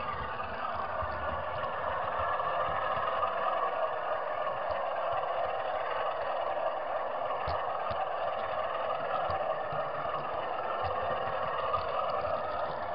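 Model train running on track, heard from a camera riding on one of its wagons: a steady whirring rumble of small wheels and motor, with a few sharp clicks.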